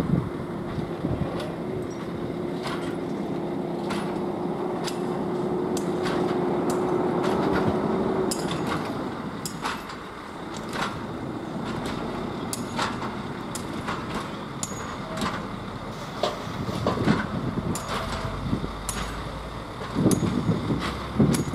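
Pair of ČD Cargo electric locomotives rolling slowly over yard points, wheels clicking and knocking at the rail joints and crossings. A steady hum from the locomotives stops about eight seconds in, and the running noise grows louder near the end.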